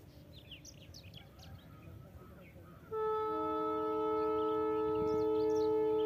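Birds chirping faintly. About three seconds in, a loud horn starts: a held chord of several steady tones that lasts about three and a half seconds and then cuts off.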